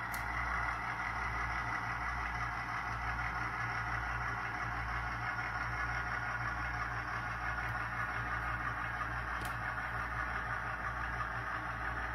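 ESU LokSound sound decoder in a Walthers EMD SW1 switcher model playing a diesel engine sound steadily at low throttle through the locomotive's small speaker, with an even, pulsing low rumble. Faint ticks come just after the start and again about three seconds before the end.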